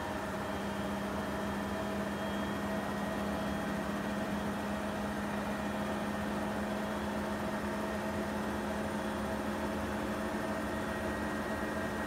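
Profilo CMS140DTR front-loading washing machine spinning at 1200 rpm: a steady mechanical hum from the motor and drum at full spin speed.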